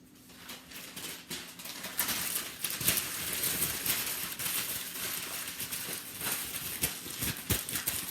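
Newspaper being crumpled by hand: a dense, crackling rustle full of small snaps that builds about half a second in, is loudest from about two seconds on, and stops at the end.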